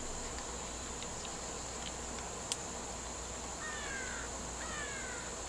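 Steady high-pitched drone of insects, crickets or cicadas. Near the end a bird gives three falling calls about a second apart, and a single sharp click sounds about halfway through.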